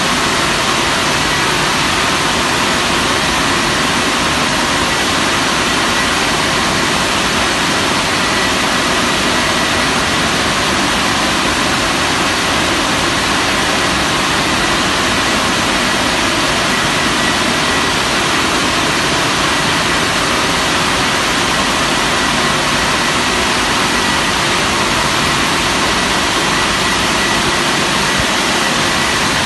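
Touchless automatic car wash machine running: a steady, loud rush of air or water from the moving gantry, with a faint high whine held throughout.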